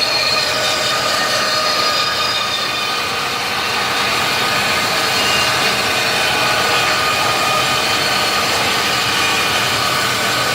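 CNC jigsaw (band-saw type) woodworking machine running steadily, a constant mechanical noise with a whine of several steady tones.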